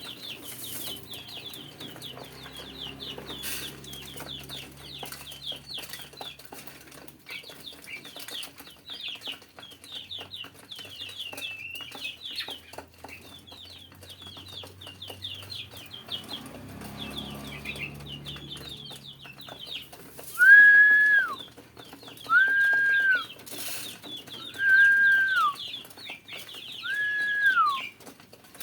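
Dense, continuous high squeaky peeping of young pigeon squabs. About twenty seconds in, four loud whistled notes of about a second each cut across it, each held on one pitch and then dropping at the end.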